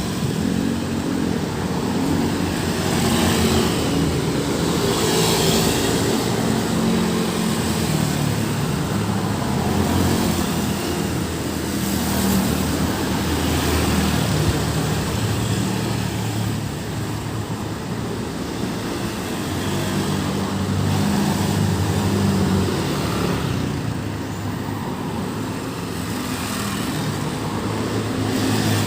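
Busy road traffic passing close by: several vehicles' engines running, swelling and fading as each one goes past.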